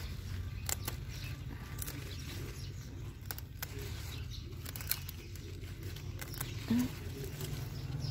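Mustard green leaves rustling and scattered clicks as the plants are handled and picked close to a phone's microphone, over a steady low rumble.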